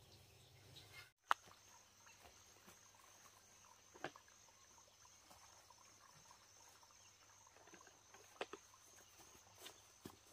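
Faint, steady high-pitched insect chirring, with a handful of sharp clicks scattered through it, the loudest about a second in.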